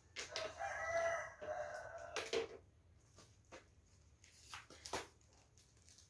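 A rooster crowing once, a single call of about two seconds. It is followed by a short sharp knock and, near five seconds in, a couple of fainter clicks.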